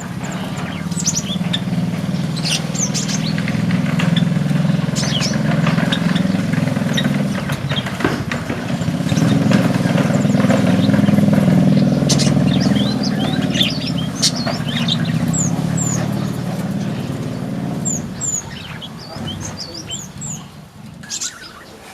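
A motor vehicle engine runs low and steady, building over the first few seconds and fading away near the end. Small white-eyes (pleci) chirp throughout in short, high calls.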